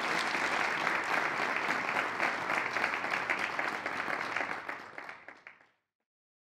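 Audience applauding, fading away about five seconds in.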